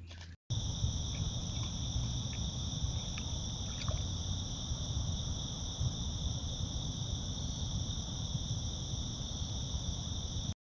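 Night chorus of crickets trilling in a steady, unbroken high drone over a low rumbling hiss, with a few faint short chirps in the first few seconds. It cuts in abruptly about half a second in and stops abruptly near the end.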